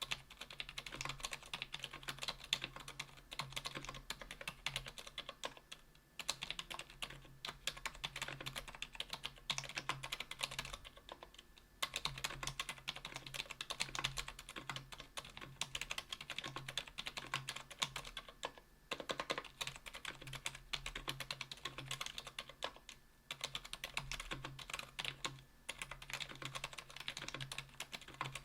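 Continuous typing on a KBDfans Tofu 60% aluminium keyboard with stock Kailh BOX Silent Pink linear switches (45 g), an aluminium plate and GMK keycaps. The keystrokes come in a rapid stream, broken by a few short pauses.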